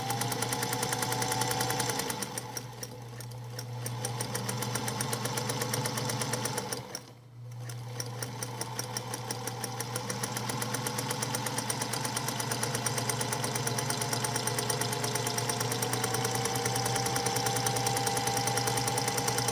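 1952 Singer Featherweight sewing machine, freshly cleaned and re-oiled, running under load as it stitches through fabric: a steady motor whine over fast, even needle clatter. It eases off about two and a half seconds in, stops briefly about seven seconds in, then runs on steadily.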